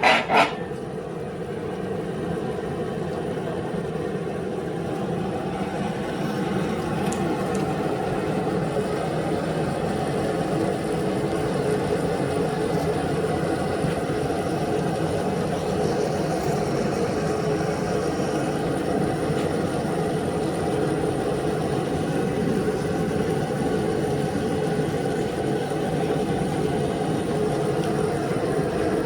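Shop heater running with a steady, unbroken whir and hum.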